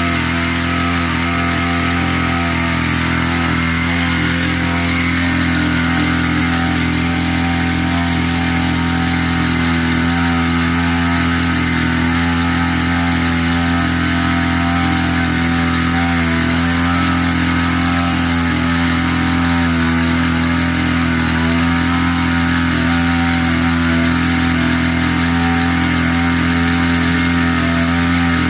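Small petrol engine of a 30-litre motorised sprayer running steadily at constant speed.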